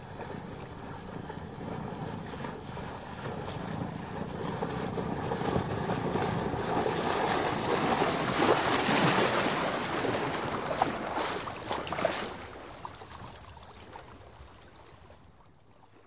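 A sailing dinghy passing by from left to right: water washing along the hull, with wind, swelling to a peak about halfway and then fading away. A few sharp knocks come near the loudest part.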